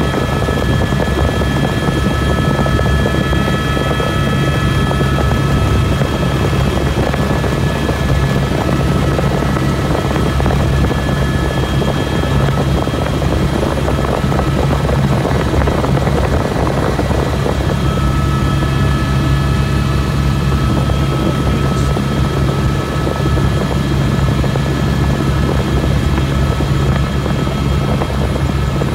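Helicopter in steady flight: a loud, constant drone of rotor and engine with several steady high whining tones above it.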